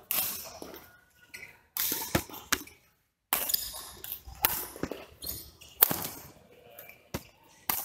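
Badminton rackets striking a shuttlecock in a doubles rally: a series of sharp hits about a second apart, echoing in a large hall.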